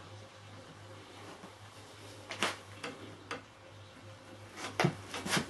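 Leather cord being handled and pulled tight while wrapping a walking-staff handle: several short scratchy rustles and clicks, the loudest two near the end, over a low steady hum.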